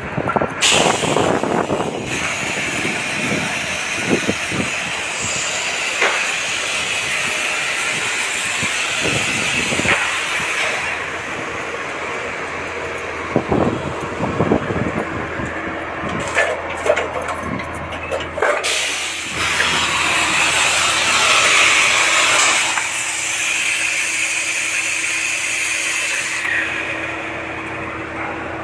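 Concrete batching plant running: loud, steady machinery noise with scattered knocks and clatter, and a steady low hum in the last third.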